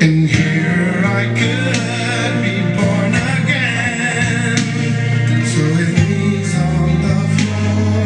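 A gospel song playing: a man's voice singing over steady instrumental backing with a bass line.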